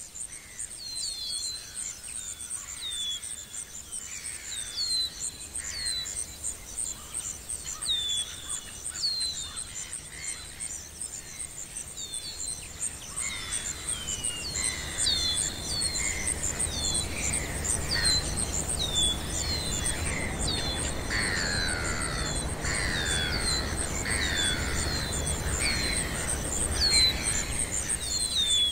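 Birds chirping over a steady, pulsing high insect trill: many short falling chirps throughout, with longer falling calls joining about halfway, while a low rumble grows underneath in the second half.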